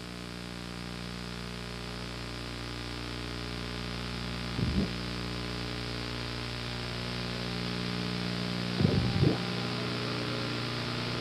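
Steady electrical hum and hiss from a blank stretch of videotape, slowly growing louder, with short low blips about five seconds in and again near nine seconds.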